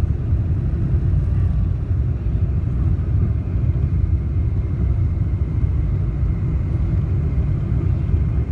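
Boeing 747-400 cabin noise heard over the wing during takeoff: the four jet engines at takeoff power make a steady deep rumble as the airliner lifts off the runway and climbs.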